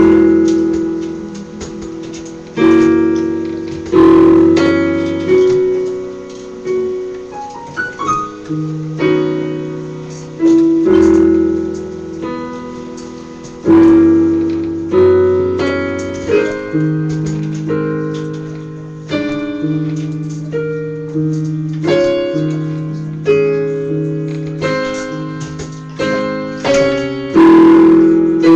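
Digital keyboard synthesizer playing slow gospel chords in B major, each chord struck and left to ring and fade, with a new chord every second or two over sustained low bass notes.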